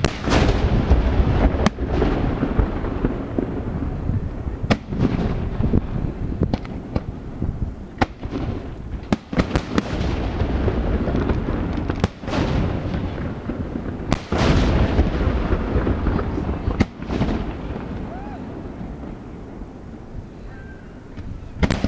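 Aerial firework shells bursting overhead in a series of sharp bangs every one to three seconds, each trailing off in a low rumble. The booms thin out and grow quieter towards the end, then a heavy burst comes just before it stops.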